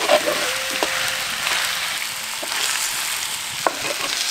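Mutton pieces sizzling in a clay pot over a wood fire as a wooden spatula stirs them: a steady frying hiss with a few light knocks of the spatula against the pot.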